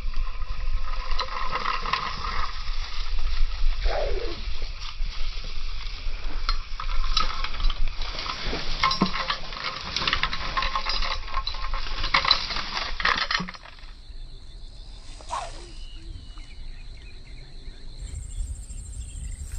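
A dense chorus of insects buzzing, with scattered clicks and knocks. About two-thirds of the way through the chorus drops away, leaving one thin, steady, high insect whine that shifts higher near the end.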